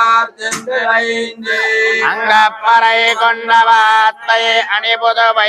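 Male voice chanting Sanskrit mantras in a melodic, sung recitation, with brief pauses between phrases.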